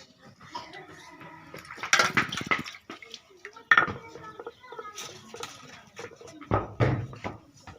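Cooking pots and utensils clattering, with several separate knocks and scrapes.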